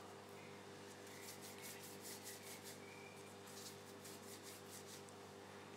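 Faint rubbing and scratching of gloved hands rolling a strip of taralli dough and pressing it into a ring, in a run of short quick strokes from about a second in to nearly four seconds, over a low steady hum.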